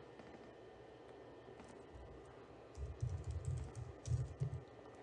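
Typing on a computer keyboard: a quiet couple of seconds, then a quick run of keystrokes starting about three seconds in.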